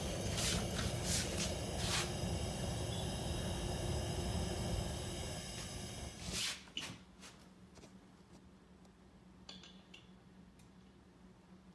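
Steady rushing noise of a metal-melting furnace's burner with scattered sharp clicks and knocks of metal tools while molten brass is poured, cutting off suddenly about six seconds in. After that only a faint steady hum and a few light knocks remain.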